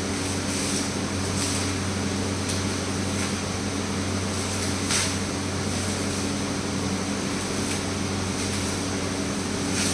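Clear plastic wrapping crinkling a few times as it is pulled off, the loudest crinkle about five seconds in, over a steady low machine hum.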